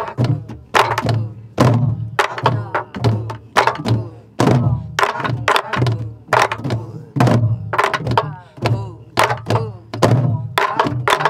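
A roomful of sori-buk barrel drums played together with sticks, sharp strikes on the heads and wooden rims in a repeating Korean rhythm pattern (jangdan) at about three strokes a second, each stroke leaving a low drum ring.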